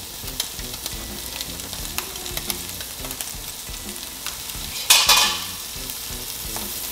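Salt cod frying in oil in a skillet, with a steady sizzle and scattered small pops. About five seconds in comes one brief, louder burst of noise.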